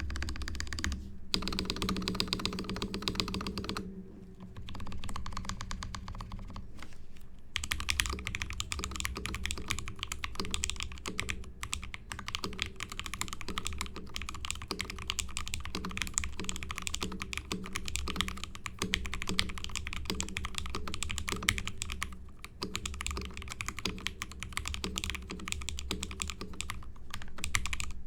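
Fast typing on a 60% mechanical keyboard in an acrylic gasket-mount case with an acrylic plate, lubed JWICK Ultimate Black nylon-top linear switches and DCP keycaps: a dense run of keystroke clacks with a couple of short pauses. The sound is dominated by the acrylic plate and is not very dense.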